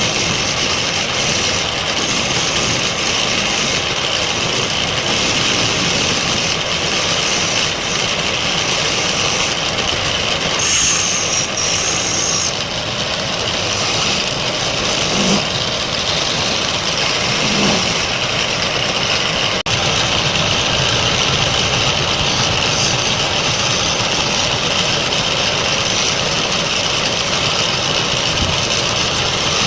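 Wood lathe running steadily, its motor and the spinning work making a continuous mechanical noise.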